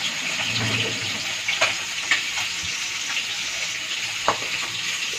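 Rohu fish pieces frying in hot oil in a kadhai on high heat, a steady sizzle, with a few light clicks of a bowl and lid being handled.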